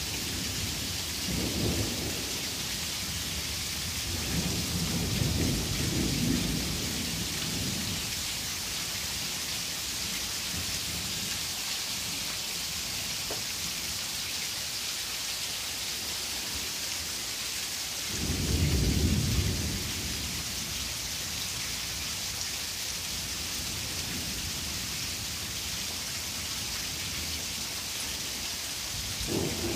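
Heavy rain pouring down in a steady hiss, with low rumbles of thunder rolling in several times: two soft ones in the first seven seconds, a louder one about two-thirds of the way through, and another at the very end.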